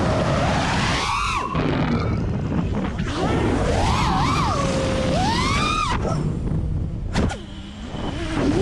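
FPV racing quadcopter's brushless motors and propellers whining through quick throttle changes, the pitch swooping up and down again and again, over heavy wind rumble on the onboard camera. The whine drops away briefly with a sharp click about seven seconds in, then climbs again.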